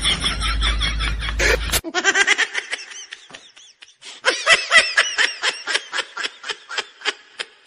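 High-pitched laughter, a rapid run of short giggling syllables about five a second. Music plays under it for the first two seconds and then stops. The laughter dips about three seconds in and picks up again.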